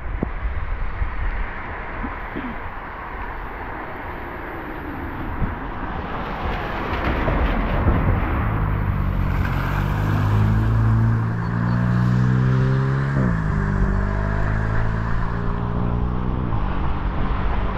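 A motor vehicle drives past on the road: tyre noise builds over the first half, then its engine hum comes in strongly about halfway through and drops in pitch twice before easing off near the end.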